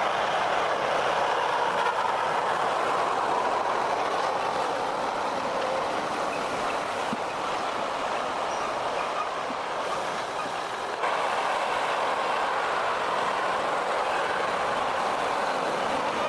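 Steady mechanical running noise of a homemade forwarder working, with a sudden small step up in level about eleven seconds in.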